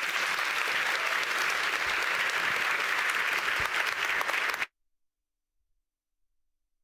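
Audience applauding; the applause cuts off abruptly after about four and a half seconds, leaving near silence.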